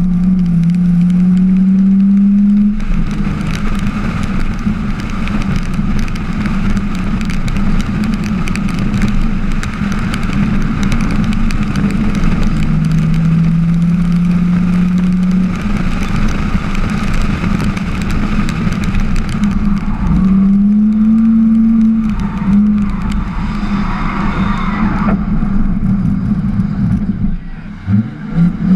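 Drift car's engine heard onboard, held at high revs for long steady stretches, with the pitch sagging and climbing again as the throttle changes. Near the end the revs drop away and are blipped back up several times in quick succession.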